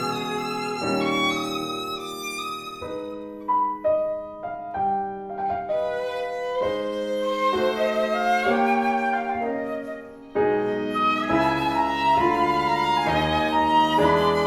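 Instrumental trio music with a violin carrying the melody in sustained notes, a passage of short, crisply struck notes about a third of the way in, and flute and piano alongside.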